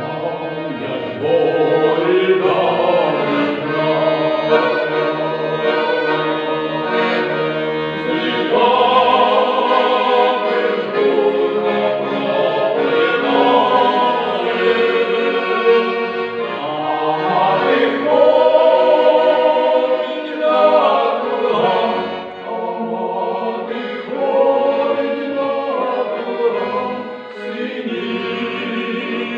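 A mixed choir of women and men sings a Ukrainian folk song to accordion accompaniment, phrase after phrase, with the voices coming in about a second in.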